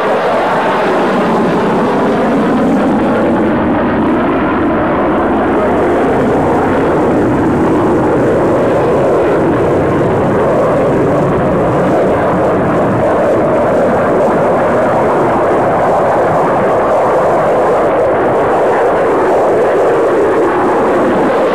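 Jet noise from a Dassault Rafale's twin M88 turbofan engines in a flying display: a loud, steady rushing that drifts slowly in pitch as the fighter passes and banks.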